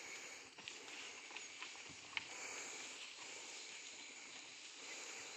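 Cattle feeding on cut grass heaped in a trailer: faint rustling and munching, with a few small ticks.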